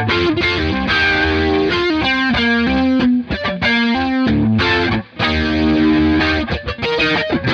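Overdriven electric guitar played through a Hughes and Kettner Tube Rotosphere tube rotary-speaker pedal, with a Barber Gain Changer overdrive in front of it. It plays a riff of chords and notes with the swirling rotary effect, breaking off briefly about five seconds in.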